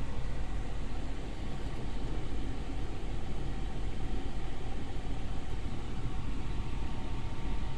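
Steady low drone and hiss of running machinery, unchanging throughout, with faint steady tones above it.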